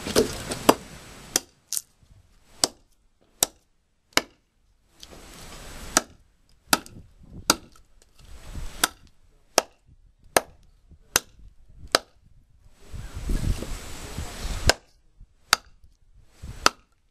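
Heavy hand-forged Big Bear knife chopping into a piece of hard, seasoned maple firewood on a chopping block: a steady run of sharp knocks, roughly one every three-quarters of a second, with short breaks about five seconds in and again around twelve seconds in.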